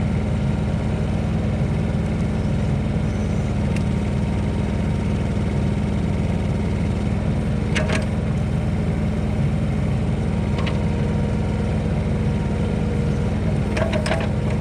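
Komatsu PC-09 micro excavator's small diesel engine running steadily at idle while the freshly resealed boom cylinder's hydraulics pressurize. A few short sharp clicks come about halfway through and near the end.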